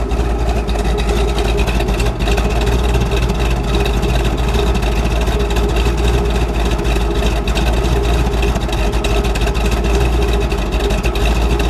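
1970 Plymouth Hemi Cuda's 426 Hemi V8 idling with a steady lope, heard at the rear exhaust tips.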